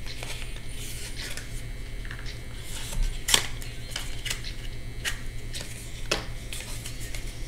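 Scattered light clicks and taps of hands handling small objects, the sharpest a little past three seconds in, over a steady low hum.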